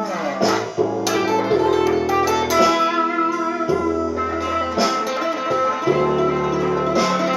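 Instrumental blues played on guitar: plucked single notes over low bass notes that change about every second.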